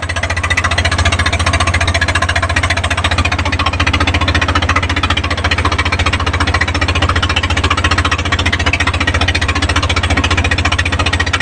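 Engine of a small wooden fishing boat running steadily under way: a loud, fast, even chugging with a strong low hum.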